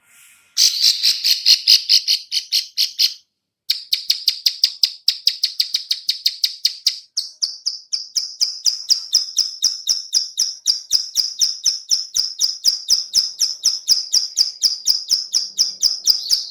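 Female plain prinia (ciblek sawah) giving its 'klik-klik' call: a fast series of sharp, high clicks. One run stops about three seconds in, and after a half-second pause a second, longer run goes on at several clicks a second.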